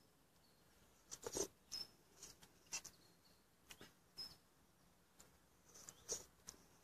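Faint, scattered clicks and light clinks of a titanium spork tapping and scraping in a metal mug as soup is eaten, some clinks with a brief thin ring.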